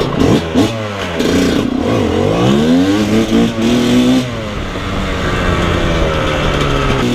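Dirt bike engine revving as the bike is ridden along, its pitch climbing and falling with the throttle, dropping sharply about four seconds in and then climbing steadily again.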